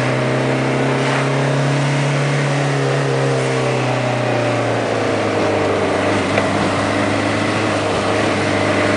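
Citroën AX diesel engine pulling under load on a hill climb, heard from inside the cabin. Its steady note drops slightly and turns rougher about five seconds in.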